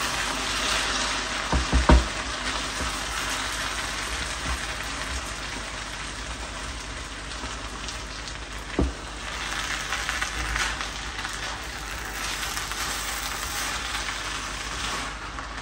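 Food sizzling steadily in a hot pot on the stove, with a couple of short knocks about two seconds in and another near nine seconds.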